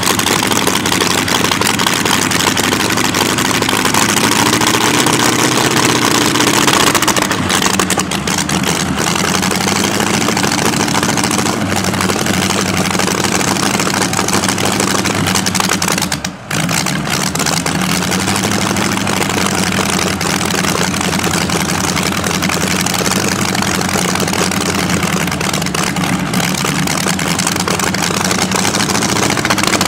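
Streamliner C-16's inline 16-cylinder engine, made from two Buick straight-eights joined end to end, idling loudly, its pitch rising and falling slightly. A brief dropout in the sound about halfway through.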